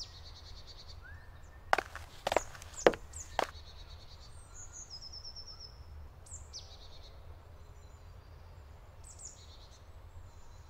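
Woodland ambience: small birds chirping in short high series over a steady low rumble, with four sharp knocks a little over half a second apart starting about two seconds in.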